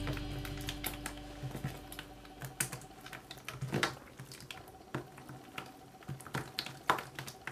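Glitter slime being squeezed, stretched and folded by hand: soft, irregular sticky clicks and squelches as it pulls apart and presses together.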